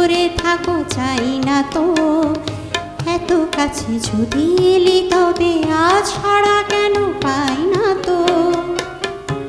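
A woman singing a Bengali song, her voice holding long notes and gliding between them, with tabla strokes beneath.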